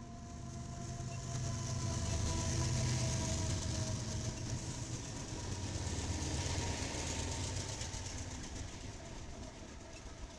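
BNSF diesel freight locomotives passing close by: a deep engine rumble with a high hiss and a faint whine, swelling over the first couple of seconds and fading after about seven.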